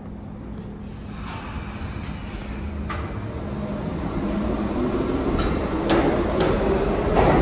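New York City subway train of R68-family cars approaching the station, its rumble growing steadily louder, with sharp clicks from the wheels over the rail joints in the second half.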